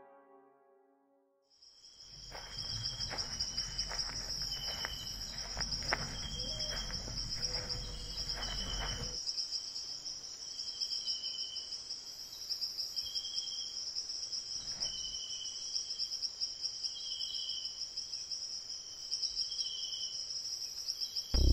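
Insects chirring, starting about two seconds in: a steady high trill with shorter cricket chirps repeating about once a second. For the first several seconds there are also scattered clicks and knocks over a low rumble.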